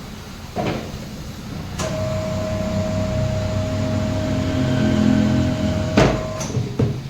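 Tyre changer machine's electric motor running for about four seconds with a steady hum, turning the wheel to work the tyre onto the rim. It starts after a click, then stops with a loud clunk and another knock near the end.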